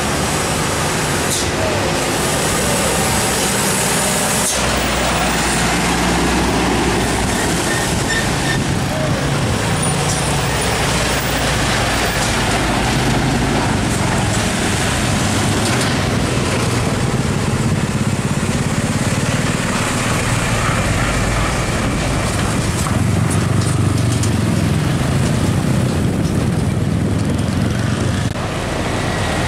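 Heavy diesel trucks and other traffic passing on a road: a steady engine drone with tyre and road noise. There is a short hiss of air brakes about two to four seconds in.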